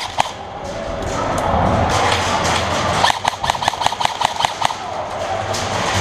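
Airsoft rifle gunfire echoing in a large hall: a rapid rattle of sharp clicks about halfway through, over a steady background of more distant shooting and hall noise.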